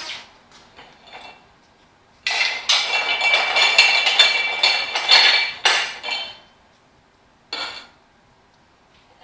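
Steel tractor wheel rim clanking and scraping against metal tools as a tire is levered onto it with a pry bar on a manual tire changer. A sharp clank comes first, then a few light clinks, then a long ringing scrape of about four seconds starting about two seconds in, and one more clank later on.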